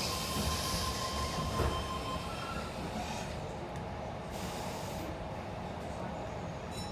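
Suburban electric passenger train running along the track, heard from inside the carriage as a steady rumble of wheels and rails, with a thin high wheel whine in the first two seconds.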